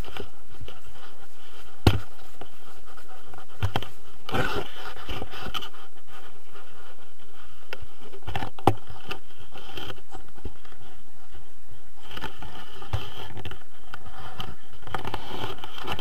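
Fabric and harness gear rubbing and scraping close to a camera microphone, a steady rustle broken by a few sharp knocks.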